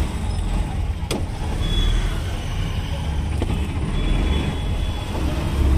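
Road traffic: a steady low rumble of vehicle engines, with a faint high tone about two seconds in and again around four seconds.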